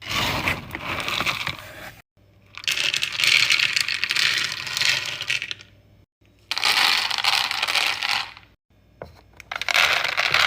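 Dry dog kibble pouring and clattering into bowls in several separate pours, each ending abruptly.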